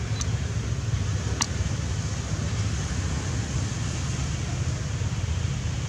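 Steady outdoor background noise: an uneven low rumble of wind on the microphone mixed with road traffic, with two brief sharp high sounds in the first second and a half.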